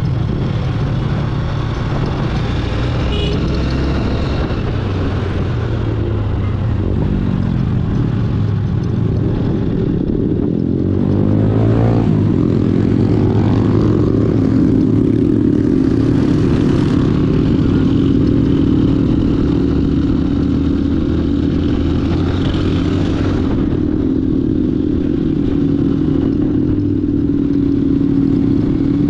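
Honda CB150F motorcycle's single-cylinder engine running on the move; the engine note rises about eleven seconds in and then holds steady.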